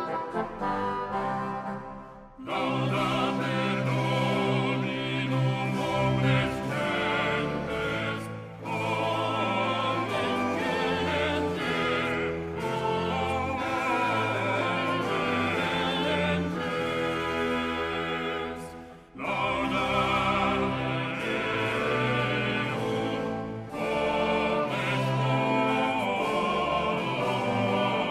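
A Renaissance Spanish ensalada performed by a small early-music ensemble of solo voices and instruments, in several phrases with short breaks between them.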